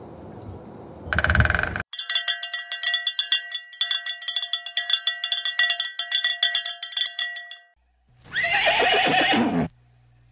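Horse sounds: a long stretch of rapid clicking over steady ringing tones, then a horse whinnying near the end, one call that falls in pitch.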